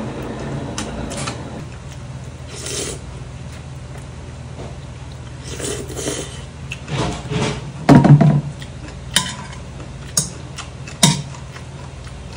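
Noodle-eating sounds: jjajangmyeon noodles being slurped and chewed. In the second half, metal chopsticks clink sharply against the stainless steel bowl about three times.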